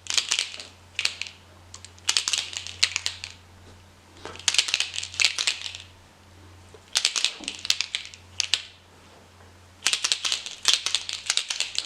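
Paint marker shaken in bursts, its mixing ball rattling in quick clicks, about seven shakes with short pauses between.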